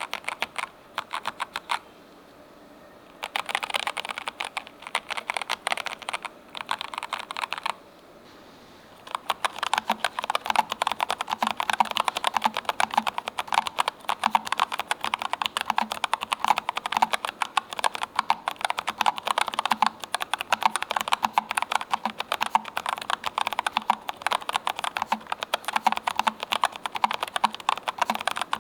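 Typing on a Keychron K3 Ultra low-profile mechanical keyboard. For the first eight seconds, short bursts of keystrokes on Low Profile Milk-POM Red (linear) switches are separated by brief pauses. After a pause of about a second, steady, fast typing follows on Low Profile Milk-POM Brown (tactile) switches.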